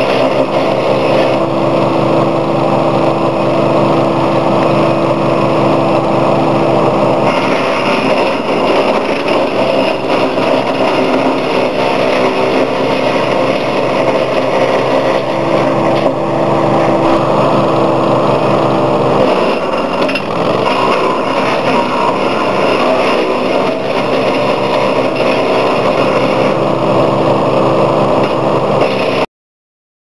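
Wood chipper's four-stroke petrol engine running steadily, its tone shifting about a quarter of the way in and again about two-thirds of the way through, then cutting off suddenly just before the end.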